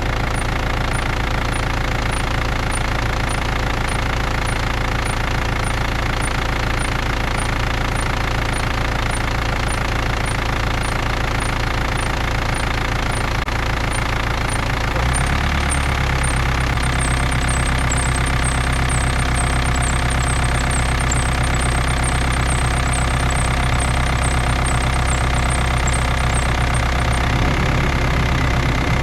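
BMW M47 four-cylinder diesel engine running cold with a high, rhythmic squeak chirping about twice a second. About halfway through the engine note changes and the squeaks come faster, then they stop shortly before the end while the engine keeps running.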